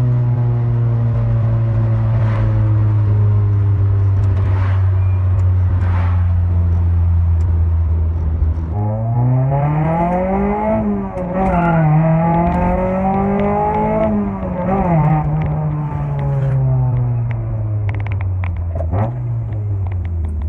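Honda B18 four-cylinder engine breathing through a 76 mm velocity stack, running steadily at first, then revving hard about nine seconds in: two rising pulls with a brief dip between, then the revs fall away, with one short blip near the end.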